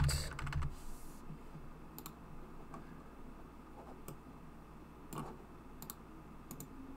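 Computer keyboard typing in a quick burst at the start, then about half a dozen separate computer mouse clicks, faint and sparse.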